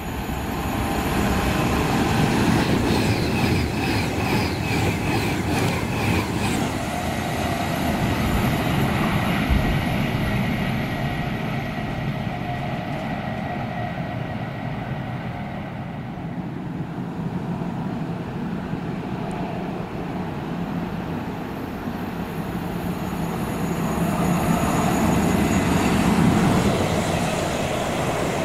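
Electric trains passing at speed. First an Avanti West Coast Class 390 Pendolino, its wheels rumbling and clattering on the rails, with a high steady whine for the first six seconds or so. The noise eases in the middle and builds again near the end as a London Northwestern Class 350 electric unit passes.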